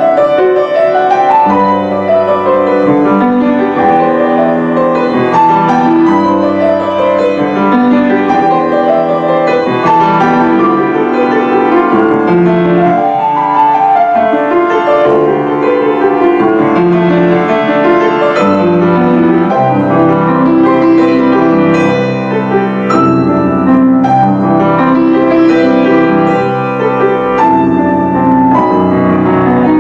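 Acoustic piano played four hands in a classical duet, with continuous flowing passages and rippling runs.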